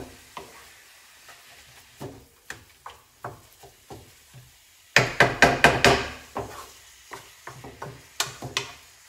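Wooden spatula knocking and scraping against a frying pan as pork mince is broken up and stirred. Scattered light taps, then a quick run of loud knocks about five seconds in, then a few more taps near the end.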